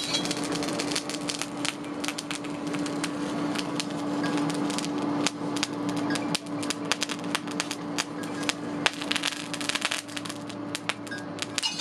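Lump charcoal crackling and popping in a blacksmith's forge fire, with many sharp irregular snaps, over a steady low hum.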